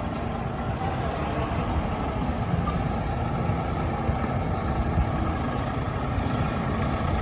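A heavy vehicle's engine rumbling steadily amid street traffic noise.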